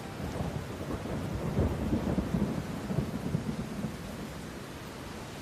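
A low, crackling rumble with no music or speech. It swells in the middle and fades away toward the end.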